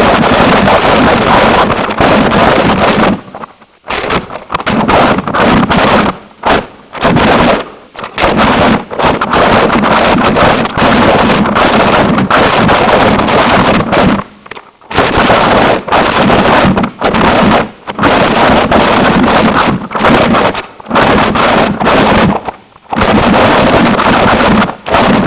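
Harsh noise music: loud, dense distorted static filling the whole range, heaviest in the low and low-mid range, cut into irregular blocks by sudden brief dropouts.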